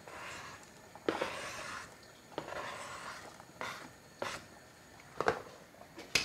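A knife scraping chopped boiled egg off a thin plastic cutting board into a pot of soup, in a few short scrapes, followed by several light taps of the knife and board.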